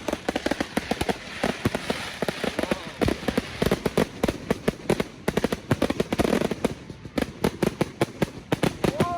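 Fireworks display at close range: dense, rapid crackling and popping, many reports a second, with some heavier bangs among them. Near the end a steady held tone starts.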